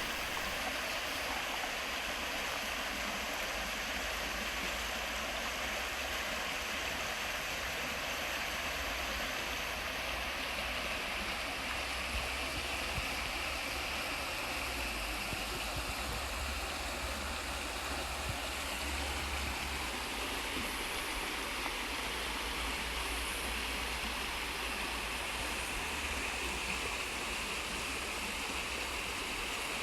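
Flowing water rushing steadily, like a stream, with no other distinct sounds.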